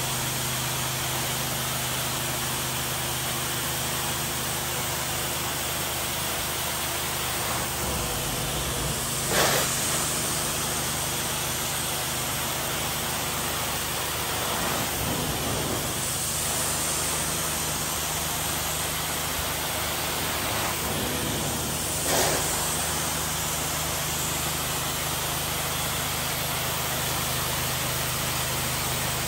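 Carpet cleaning wand on a Sapphire Scientific 370 truck-mount steam cleaning system, extracting: a steady rushing hiss of suction and spray over a low, steady hum. It swells briefly twice, about a third and three quarters of the way through.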